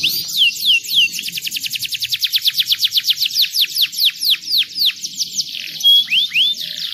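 Canary singing: descending whistled notes that quicken into a fast rolling trill of about ten notes a second, then slow again, ending with a short held note and a couple of rising sweeps.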